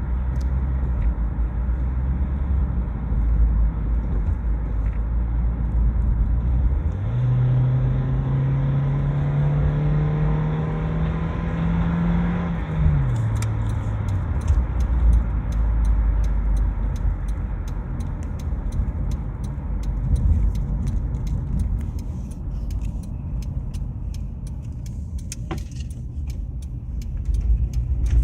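2000 Honda CR-V's four-cylinder engine running, then revving up about 7 seconds in, its pitch climbing slowly for several seconds into the range near 5000 rpm, where the owner reports a crunching grind and a slipping feel, before dropping back. After that come many light, sharp clicks over the engine's steady running.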